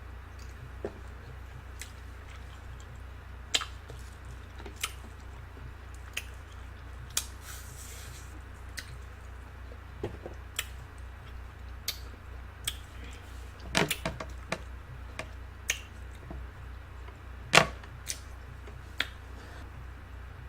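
Eating sounds from someone eating fresh fruit: scattered sharp mouth clicks and smacks, with a small cluster of them about two-thirds of the way through, over a steady low hum.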